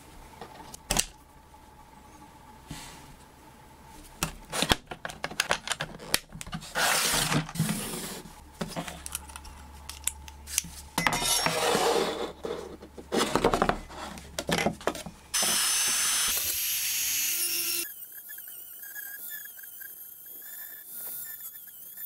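Small metal tool bits and accessories clattering and clicking as they are handled, with a couple of seconds of loud steady hiss about two-thirds of the way in. In the last few seconds a Dremel rotary tool runs with a thin whine that wavers in pitch as it carves the wooden saw handle.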